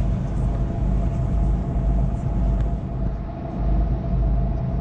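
Tour boat's engine running with a steady low rumble and a faint constant hum, with the rush of water along the hull.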